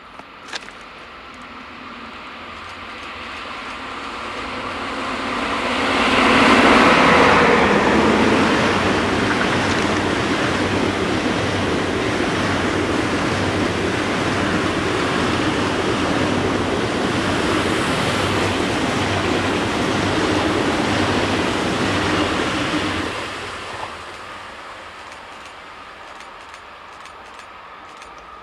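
Two coupled ICE 3 high-speed electric trainsets passing at speed. There is a rising rush of air and rolling wheels, loudest as the front goes by about six seconds in, holding steady for about fifteen seconds while the coaches pass, then fading away.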